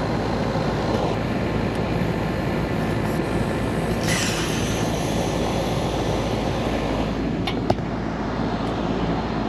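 Leftover R22 refrigerant hissing out of an air conditioner's liquid-line service port as the Schrader valve core is pulled with a valve core removal tool. The hiss gets sharper about four seconds in and eases off near the end. A few small metal clicks follow as the brass parts go into a metal parts dish.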